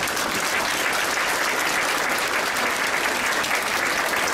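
Large arena crowd applauding steadily, a dense, even patter of many hands clapping, welcoming a competitor just introduced by name.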